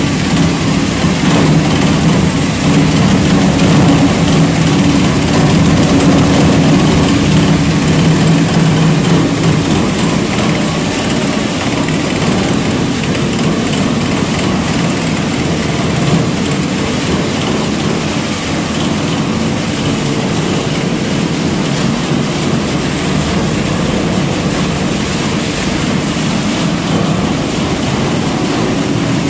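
Bano Premac 22-70 Hydro single-shaft shredder running as it shreds copper transformer coils: a loud, steady machine noise with a low hum that eases off a little about ten seconds in.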